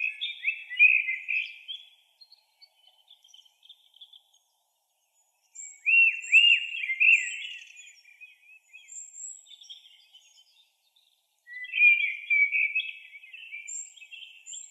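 A bird singing three phrases of quick, high chirps and trills, each two to three seconds long and about five seconds apart, with a few faint, thinner tweets between them.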